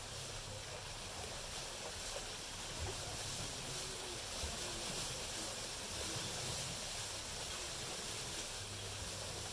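Honeybees flying in and out of a hive entrance: a steady low hum under an even outdoor hiss, with faint short buzzes of single bees passing close by.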